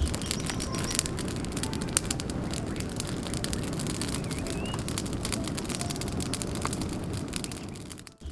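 Open wood fire of dry sticks and leafy branches burning hard: a steady rush of flame with frequent sharp crackles and pops.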